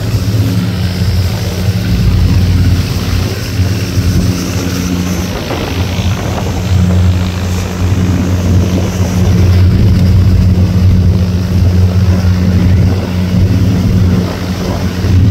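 A fishing boat's engine running steadily at speed, with a constant low hum, under a rush of wind and water noise.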